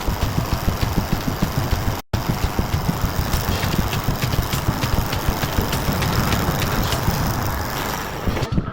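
A Jeep Wrangler JK's common-rail diesel engine idling with a steady, quick pulsing beat. The sound cuts out for an instant about two seconds in, and music comes in near the end.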